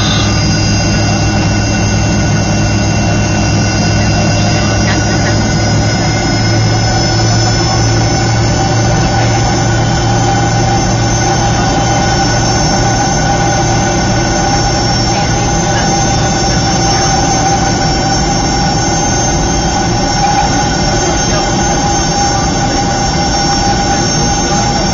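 Fokker 70's rear-mounted Rolls-Royce Tay turbofans heard from inside the cabin while the airliner taxis: a loud, steady drone with a low hum and several high-pitched whines held at an even pitch.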